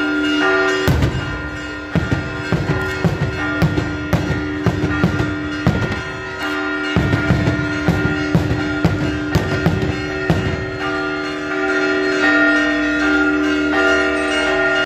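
Church bells ringing a continuous festive peal, with daytime fireworks banging in quick succession over it. The bangs thin out after about ten seconds, and the bells ring on.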